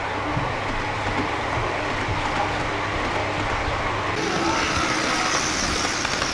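Gauge 0 model train running on the layout's track, a steady rolling rumble. About four seconds in, a higher whine joins the sound.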